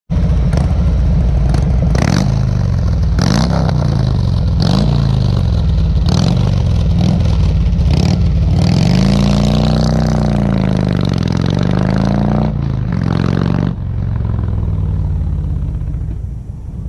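Harley-Davidson touring motorcycle's V-twin engine running loudly close by, with a sharp crack every second or so. The engine then rises and falls in pitch as it pulls away, and fades near the end.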